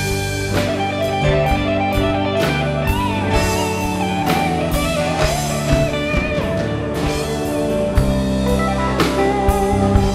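Rock band music: a lead electric guitar playing wavering, bent notes over bass and a drum kit keeping a steady beat.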